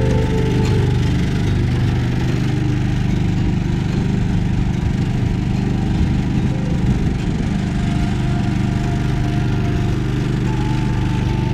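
Outboard motor of a narrow wooden river boat running steadily under way, an even low engine note that holds at one speed.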